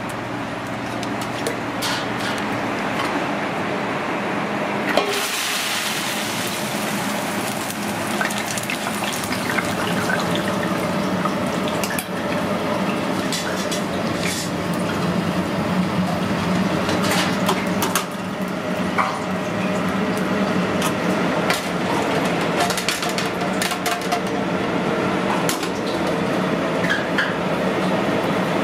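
Leafy greens deep-frying in a wire fryer basket: the hot oil sizzles with a steady hiss that sets in abruptly about five seconds in. Metal pans and the basket clink and clatter throughout.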